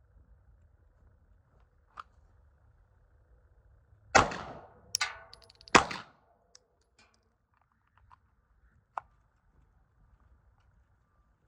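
Two pistol shots about a second and a half apart, a first shot and a follow-up, with a short metallic ring between them. A couple of faint clicks come before and after.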